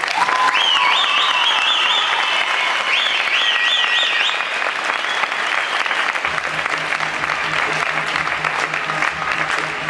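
Audience applauding loudly with whistles and cheers at the end of a gymnastics floor routine. About six seconds in, a low pulsing sound joins the applause.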